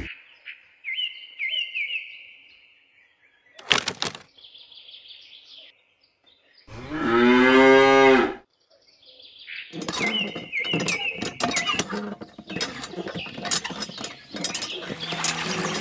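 A cow moos once, a loud call of under two seconds about seven seconds in. Around it are quieter high chirps, a sharp knock about four seconds in, and a run of light clicks near the end.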